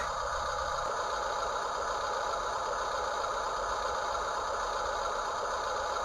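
Radio-controlled toy construction vehicle's built-in engine sound running a steady simulated diesel idle.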